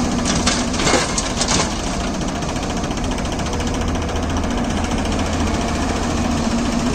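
Soil and clods from an excavator bucket pouring and thudding into a steel tractor trolley during the first second and a half, over the steady idle of the tractor's diesel engine and the excavator.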